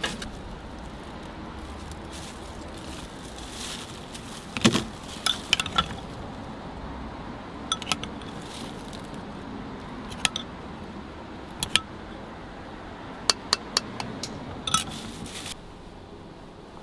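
Metal spoon and utensils clinking against metal noodle bowls: about a dozen scattered sharp clinks and taps over a steady low hum, which drops near the end.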